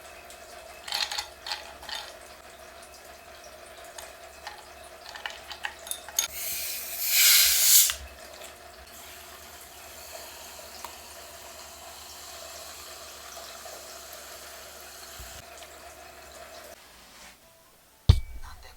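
A tap runs briefly in a loud rush for about two seconds in the middle, amid scattered clinks and knocks, over a steady hum. A sharp thump comes near the end.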